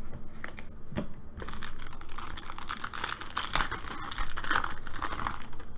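Foil trading-card pack wrapper crinkling as it is torn open and pulled off the cards by hand. A few separate crackles come first, then dense, continuous crinkling from about a second and a half in.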